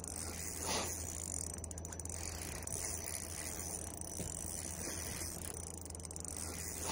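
Daiwa Caldia LT spinning reel being cranked steadily, its gears whirring and ticking as line is wound in against a hooked fish on a bent rod. A brief knock just under a second in.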